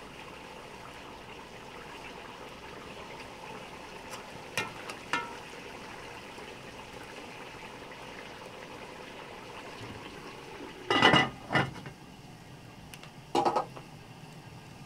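Large aluminium cooking pot, its lid and a ladle clanking: light clicks about five seconds in, then a cluster of sharp metal clatters about eleven seconds in and one more near the end, as the lid is handled and set on the pot. A steady low hiss runs underneath.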